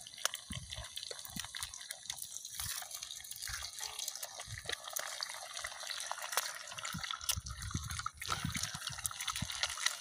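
Sucuk and eggs frying in a steel pan over a campfire: a steady sizzle peppered with small crackling pops.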